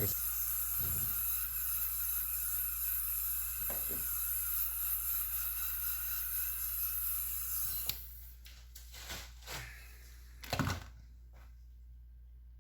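Gas torch hissing steadily as it heats the submersible motor's casing to loosen the stator, shut off suddenly about eight seconds in. A few knocks follow.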